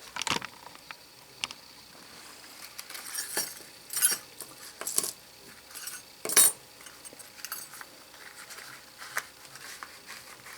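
Small steel lock picks clinking and clattering onto a workbench as a pouch of them is emptied out, in a handful of separate metal clinks with quieter rattles between.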